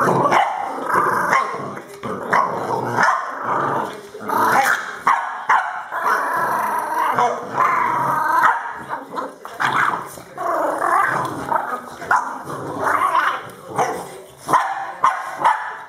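French bulldog puppy growling and barking without pause while play-biting a person's hand, with long drawn-out growls broken by short yaps.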